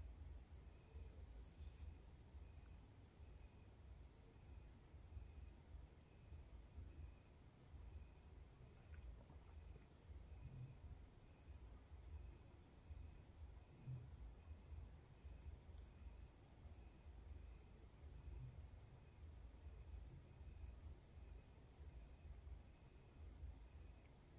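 Near silence, with a faint steady high-pitched chirring of crickets and a low rumble underneath.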